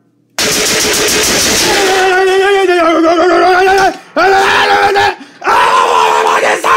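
A loud, harsh burst of noise, then a person yelling in long drawn-out cries, with breaks about four and five seconds in.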